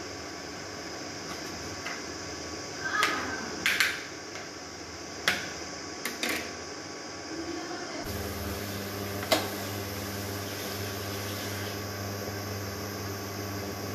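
A kitchen knife strikes a plastic chopping board a few times as vegetables are cut, giving sharp, irregular taps. About eight seconds in, the background changes to a steady low hum, with a single clink a second later.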